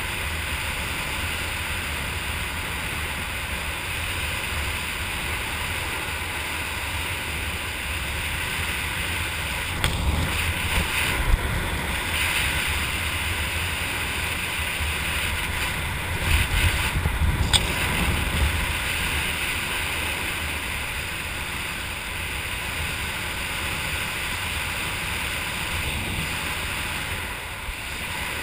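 Wind rushing over the camera's microphone during flight under an open parachute canopy: a steady rush, with louder buffeting gusts about ten seconds in and again around sixteen to eighteen seconds.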